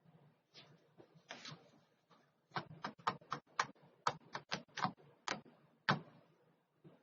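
A drawing tool working on paper: a couple of longer scratchy strokes near the start, then a quick run of about a dozen short strokes or taps, roughly three a second, around the middle.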